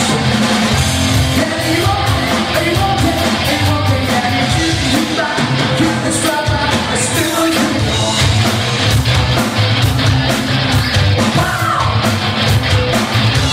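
Live rock band playing: electric guitar, bass guitar and drum kit, with a lead singer's vocals over them.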